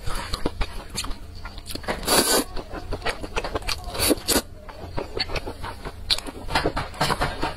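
Person slurping noodles in two longer draws, about two seconds in and again about four seconds in, between wet chewing and lip-smacking clicks.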